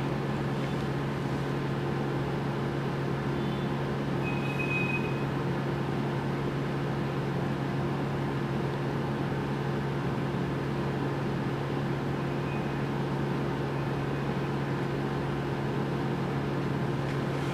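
Steady low electrical hum over an even hiss, from mains-powered workbench equipment running.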